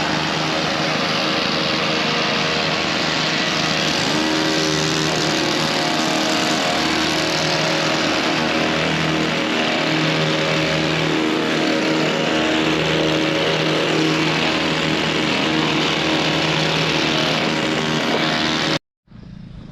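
An engine running steadily for most of the clip, its pitch wavering slightly, over a strong hiss; it cuts off abruptly near the end.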